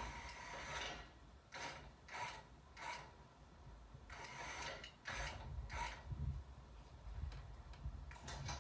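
Braun wheelchair lift's hydraulic unit running, cutting off about a second in, then running again in a series of short spurts, with a low rumble underneath in the second half.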